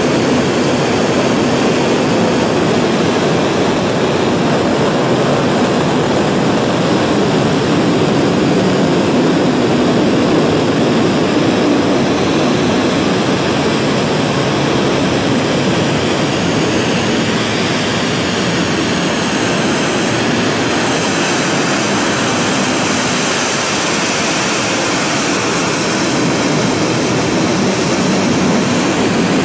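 7-tonne-class liquid-propellant rocket engine, the third-stage engine of the KSLV-II launcher, firing steadily on a test stand during a long-duration hot-fire test: a loud, dense, even rushing noise.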